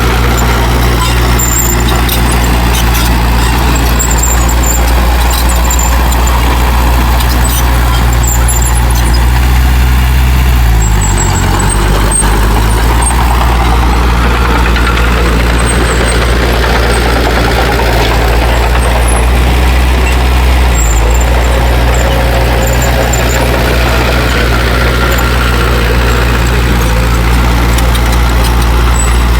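Heavy earthmoving machine's diesel engine running steadily and loudly. Around eleven seconds in it briefly drops in pitch, as if bogging under load, then recovers. Short high squeaks come and go over it.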